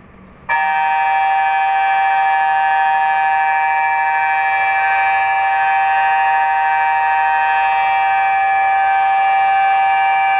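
InaTEWS tsunami early-warning siren sounding a steady tone of several pitches at once, held level without rising or falling, starting abruptly about half a second in. It is sounding as a test of the early-warning system.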